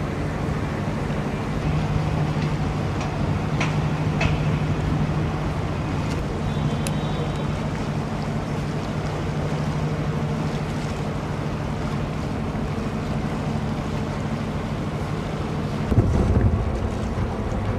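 Steady low drone of a harbour ferry's engine under way, with water washing along the hull. About sixteen seconds in, wind starts buffeting the microphone with a louder rumble.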